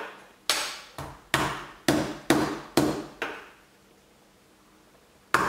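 Kitchen knife smashing peeled garlic cloves and shallots against a cutting board: about seven sharp knocks, roughly two a second, then a pause and one more knock at the very end.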